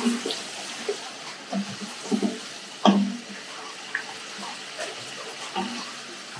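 Raw chicken pieces sizzling in hot oil in a large nonstick pot, being seared until they change colour, with the knocks and scrapes of a wooden spoon stirring them; the loudest knock comes about three seconds in.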